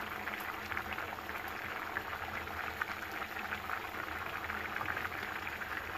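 Chicken curry simmering in a steel karahi: thick gravy bubbling with a steady stream of small pops and crackles.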